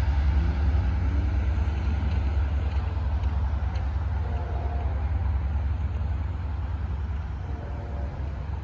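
Passing LIRR passenger train hauled by DM30AC diesel locomotives, a steady low rumble that slowly fades as the train moves away.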